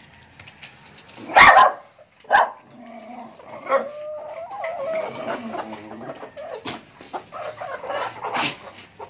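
A dog whining and yelping. There are loud sharp yelps about a second and a half in and again a second later, wavering whines through the middle, and another yelp near the end.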